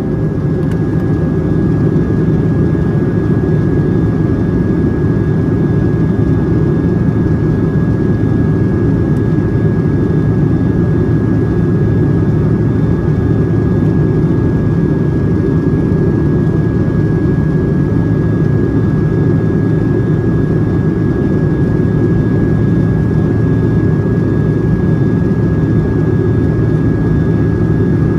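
Steady in-flight cabin noise of a Boeing 757-200 heard from inside the main cabin: a deep, even rush of engine and airflow noise with a thin steady high tone above it.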